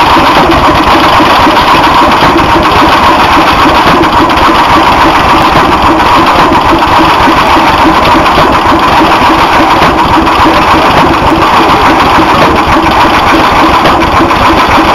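Antique hit-and-miss stationary gas engine running close up, a loud steady mechanical sound from the engine and its valve and igniter gear.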